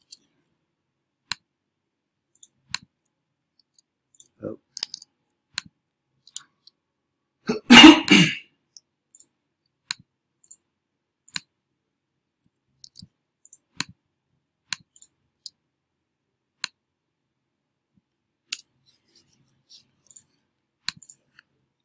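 Computer mouse and keyboard clicking: single sharp clicks, scattered every second or two. One brief, louder noise about eight seconds in.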